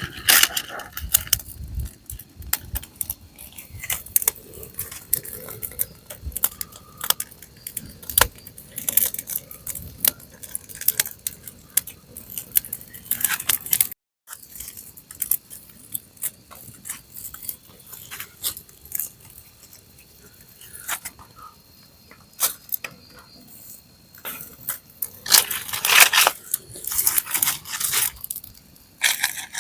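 Scattered clicks, knocks and rustles of things being handled, with a brief cut to silence about halfway through and louder handling noises near the end.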